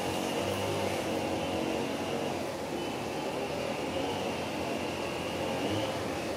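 Steady machine-like background hum with no distinct events, and a thin high whine that fades out for a while and comes back.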